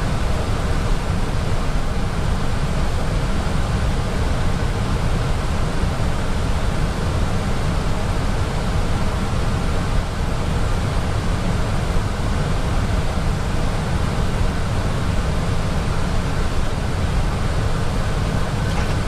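Steady rushing cockpit noise of an Airbus A320 in flight on descent: air streaming over the airframe and through the cockpit ventilation, even and unbroken.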